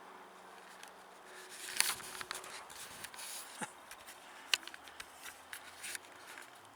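Scattered sharp clicks and brief rustles, irregular and unevenly spaced, over a faint steady background. The loudest come about two seconds in and again past the middle.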